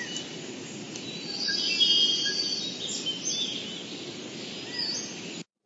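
Nature ambience: birds chirping, with a short trill about two seconds in, over a steady background rush. It cuts off abruptly near the end.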